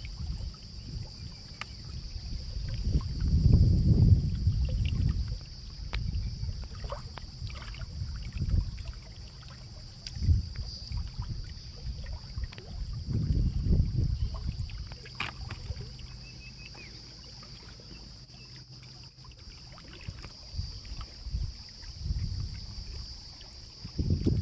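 Outdoor river ambience: low rumbling gusts of wind on the microphone that swell and fade, over a steady high-pitched hiss, with a few light clicks and knocks.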